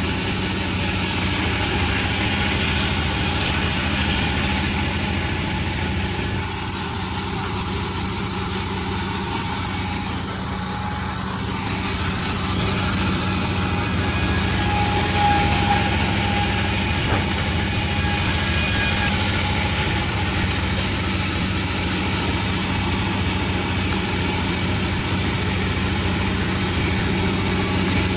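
Panda36 sawmill running steadily: a constant engine drone with an even rush of noise over it and no breaks or knocks.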